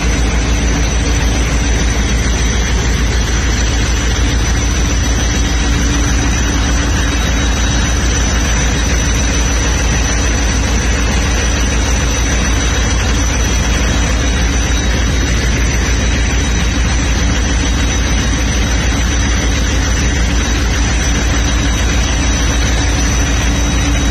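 Diesel locomotive engine idling while the train stands. It gives a steady, fast low throb with a constant hum and a thin high whine over it.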